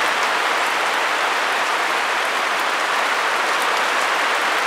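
Heavy rain falling steadily, a dense even hiss with scattered drop ticks.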